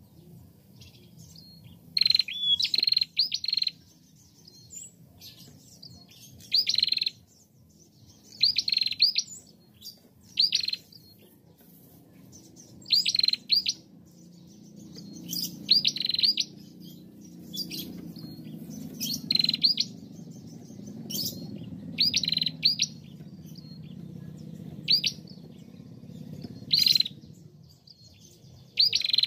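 Female prenjak (prinia) calling: clusters of two to four sharp, high chirps repeated every second or two, over a faint low background hum.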